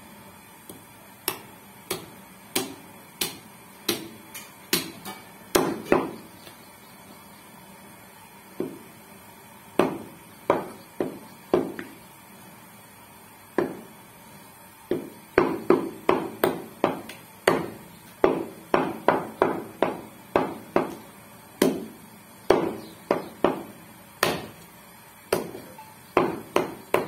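Meat cleaver chopping goat meat on a wooden chopping block: repeated sharp chops, spaced out with pauses in the first half, then a quicker run of about two to three chops a second from about halfway through.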